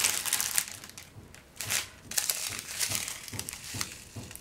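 Small plastic bags of diamond painting drills crinkling as they are handled, in irregular bursts with a quieter gap about a second in.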